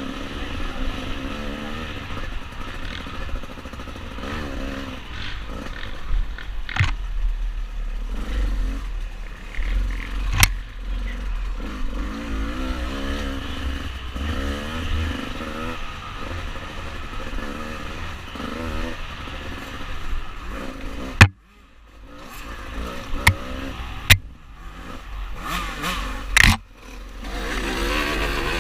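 Dirt bike engine revving up and down as it is ridden over rough ground, with several sharp knocks and clatter from bumps.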